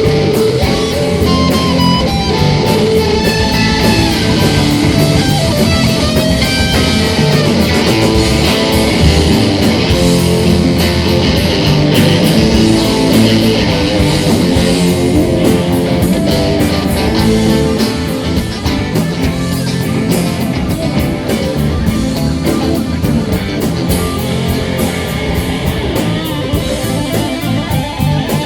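Live rock band playing, with guitar and drum kit, captured on a Tascam DR-40 handheld recorder. It eases a little in loudness about two-thirds of the way through.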